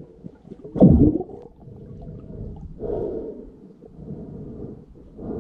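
Muffled underwater rumbling of water moving around a submerged camera while snorkeling. It swells in surges about every two seconds, the loudest about a second in.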